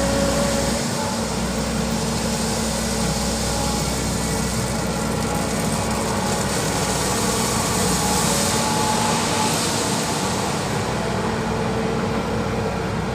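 Volvo EC200D excavator's diesel engine running steadily.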